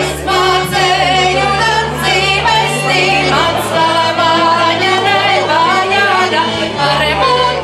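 Live folk band in a restaurant: a woman sings a folk song into a microphone with instrumental accompaniment over long held bass notes. The bass changes about halfway through and again near the end.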